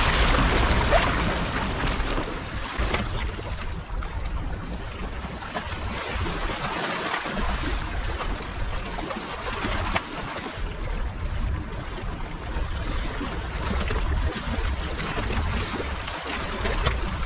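Sea waves washing, the water noise rising and falling every several seconds, with wind on the microphone.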